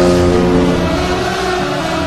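Anaheim Mighty Ducks' arena goal horn blowing a steady, low chord that fades out about a second in, with music underneath.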